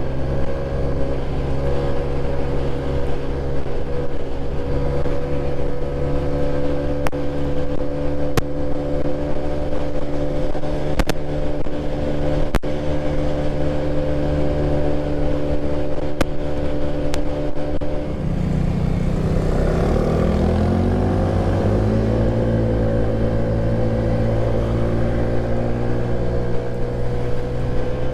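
Motorcycle engine running steadily at cruising speed, heard from on the bike with road and wind noise. About 18 seconds in, the engine note breaks and then climbs over a few seconds before it settles again. A few sharp clicks sound earlier.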